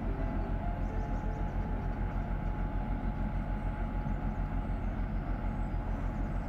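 Diesel engine of an inland tanker ship running steadily under load as it travels upstream, with an even, rapid pulsing of about six beats a second.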